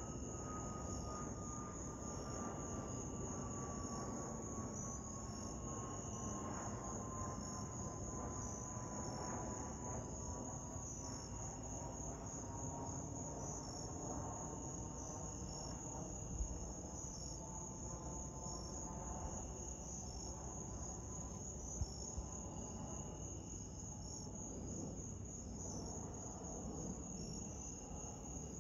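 Insects chirping steadily over the distant rumble of a twin-engine jet airliner passing overhead, its faint engine whine slowly falling in pitch as it flies away. Two small clicks in the second half.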